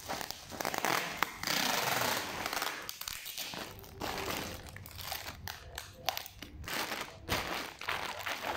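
Clear packing tape pulled off the roll with a rasping screech and pressed onto a plastic-bag parcel, with the plastic crinkling and knocking as the parcel is handled and turned.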